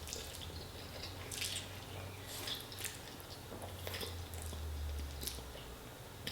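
A person chewing a mouthful of tomato spaghetti close to the microphone, with short wet mouth clicks scattered throughout. A low steady hum sits underneath.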